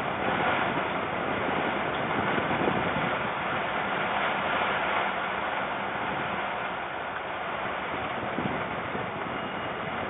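Strong wind buffeting the nest-box microphone: a steady rushing noise, a little louder in the first half.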